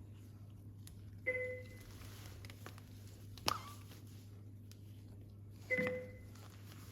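Two short electronic beeps, about four and a half seconds apart, over a steady low hum, with a single sharp click between them.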